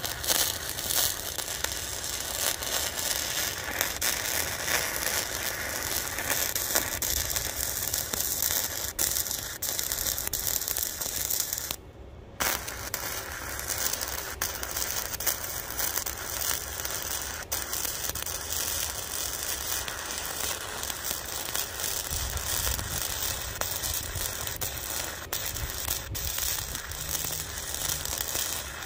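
Cheap Harbor Freight flux-core wire-feed welder arc crackling steadily during a long weld on thick steel pipe. It cuts out for about half a second near the middle, then strikes again and crackles on.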